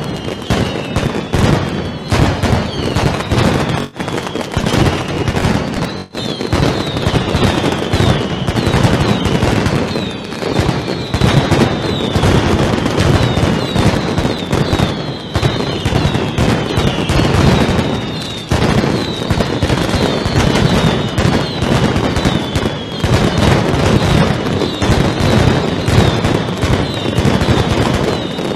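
Mascletà firecracker strings exploding in a dense, unbroken barrage of bangs, with repeated high whistles falling in pitch over it.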